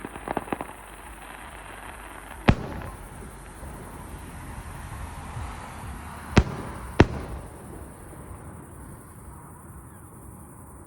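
Aerial fireworks shells bursting: a quick cluster of small pops near the start, one loud bang about two and a half seconds in, then two more bangs about half a second apart a few seconds later.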